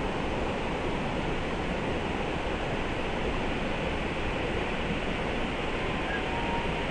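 Flowing creek water making a steady, even rushing sound.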